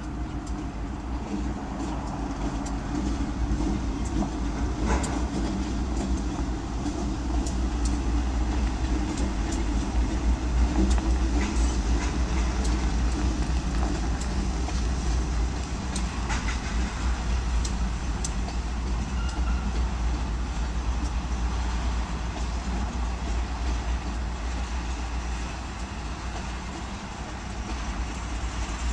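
Providence & Worcester freight train passing: the diesel locomotives' engines rumble by, then loaded ethanol tank cars roll past with sharp wheel clicks. The sound is loudest about ten to twelve seconds in as the locomotives go by, and eases later as the tank cars pass.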